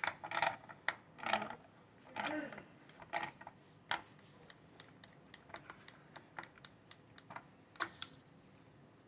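Small metal clicks and taps of hand tools working on chainsaw clutch parts, then a sharp metallic clink about eight seconds in that rings briefly with a high tone.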